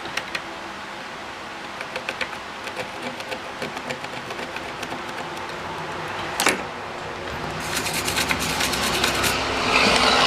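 Small clicks and taps of hand tools working on a circuit board during soldering repair, scattered at first, with one sharper click and then a quick run of ticking near the end, over a steady background hum.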